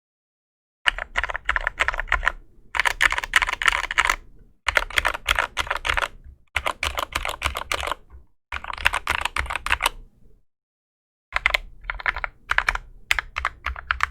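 Fast typing on a Drop CTRL mechanical keyboard fitted with lubed Gateron Clear linear switches and Cherry-profile PBT keycaps, with clip-in stabilizers lubed with Krytox 205g0. The keystrokes come in runs of rapid clicks about two seconds long, separated by short breaks.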